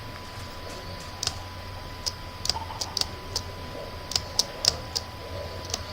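About ten light, sharp clicks at uneven intervals, in loose clusters and louder in the second half, over a faint steady tone and low hum.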